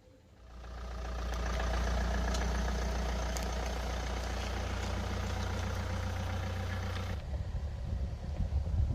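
An engine running steadily with a low hum, swelling up over the first second or two. About seven seconds in it cuts off abruptly and gives way to an uneven low rumble like wind buffeting the microphone.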